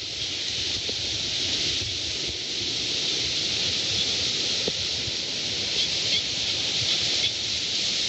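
Steady rushing wind with the wash of surf, the wind buffeting the phone's microphone in a low uneven rumble.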